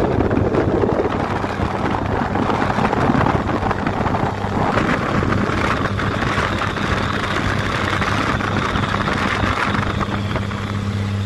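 Truck cruising on a highway, heard from inside the cab: a steady low engine hum under road and wind rush. The rushing noise grows stronger from about halfway through.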